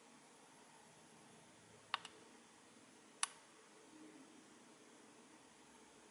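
Quiet room tone broken by small sharp button clicks on a pair of FPV goggles: a quick double click about two seconds in, then a single click about a second later.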